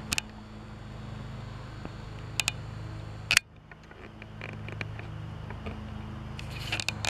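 Steady low hum of room tone with a few sharp handling clicks from the camera as it zooms and reframes. The loudest click comes about three and a half seconds in, and there are more clicks near the end.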